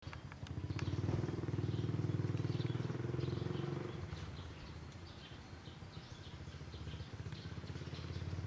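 An engine running nearby with a fast, even pulse. It swells over the first second, holds for a few seconds, then fades and builds again near the end. Birds chirp faintly throughout.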